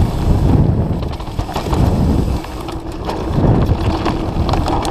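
Mountain bike descending a rough dirt trail at speed: wind buffeting the camera microphone over the rumble of tyres on dirt and rocks, with scattered rattles and clicks from the bike.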